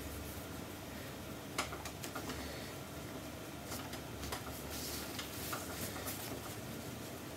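Fabric rustling as hands fold, smooth and pin a cotton bag lining, with a few small clicks and taps over a steady low hum.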